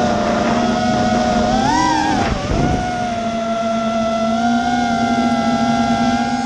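Four brushless motors (Emax 2205 2300kv) on an FPV freestyle quadcopter, spinning tri-blade props with a steady high whine as heard from the onboard camera. About two seconds in, a throttle punch briefly lifts the pitch, which then drops back before settling into a steady cruise.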